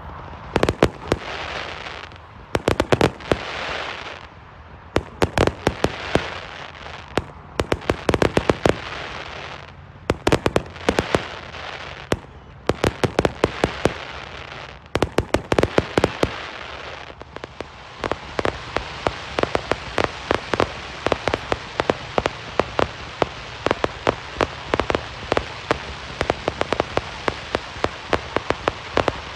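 Consumer fireworks going off. Clusters of sharp bangs come with a hissing rush between them, then from about 17 seconds in there is a dense, continuous crackle of many small pops.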